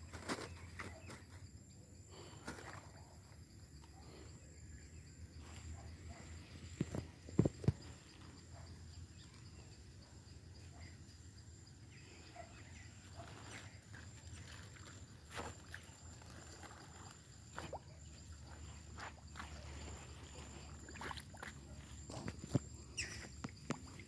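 Footsteps through forest undergrowth: scattered snaps and crunches of twigs and leaves underfoot, with a couple of louder cracks about seven seconds in.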